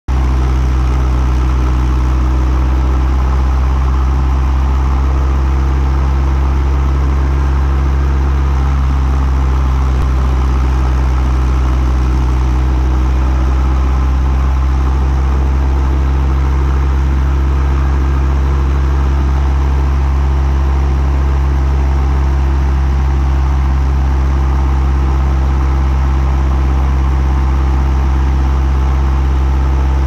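Helicopter running on the ground close up, engine and main rotor turning at a steady speed: a loud, unchanging low drone.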